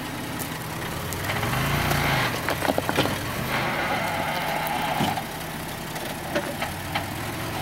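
Mitsubishi Pajero's V6 engine running at low revs as the SUV crawls over a rock. The engine note swells briefly about two seconds in, and a cluster of sharp knocks and clicks comes around three seconds in, with a few more later.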